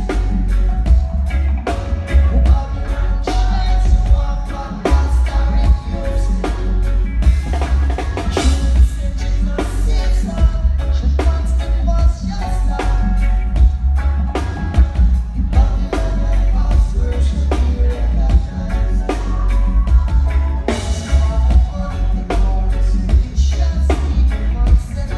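Live reggae band playing through a concert PA: electric guitars, heavy bass and a drum kit keeping a steady beat, with a lead vocal over the top.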